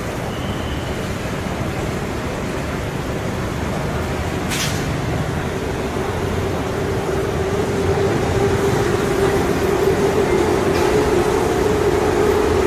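City street traffic noise, with a steady droning hum that grows louder through the second half.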